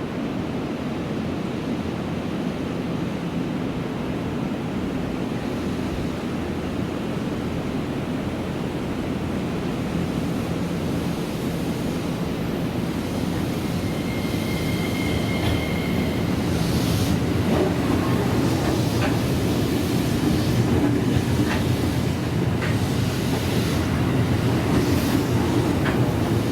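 Electric commuter train running in on the track, its rumble growing louder through the second half, with a brief high-pitched tone about halfway and sharp clicks of the wheels over rail joints near the end.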